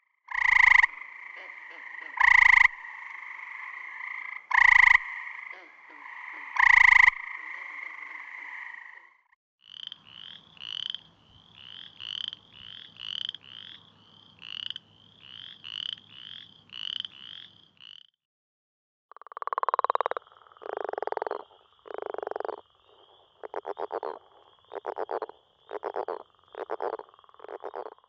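Three frog recordings in turn. First, gray treefrogs calling: four loud, short musical trills over a steady background chorus. Next, a boreal chorus frog giving its short rising creaky trills, about one and a half a second. Last, northern leopard frog calls, a series of low, rattling snore-like notes.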